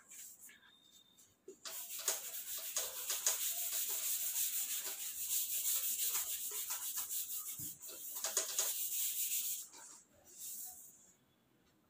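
Whiteboard eraser scrubbing marker writing off a whiteboard in quick back-and-forth strokes, a steady rubbing hiss for most of the time with a short pause, then one last brief wipe near the end.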